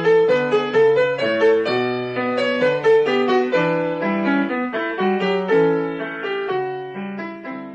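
Piano music: a quick run of single notes over chords, getting quieter over the last couple of seconds.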